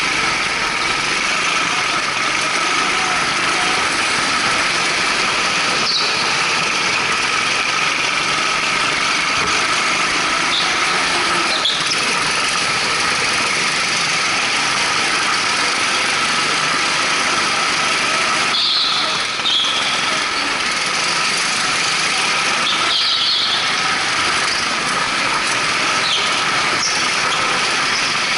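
Go-kart engines, twin Honda GX200 single-cylinder four-strokes, running hard in a steady high drone heard from aboard the kart. Short high tyre squeals come several times as the karts slide through corners on the smooth floor.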